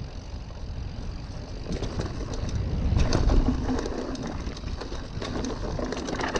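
Mountain bike descending a dirt trail: tyres rolling and skidding over dry dirt and leaves, the frame and chain clattering over bumps, with wind buffeting the microphone. A heavier rumble and rattle comes about halfway through.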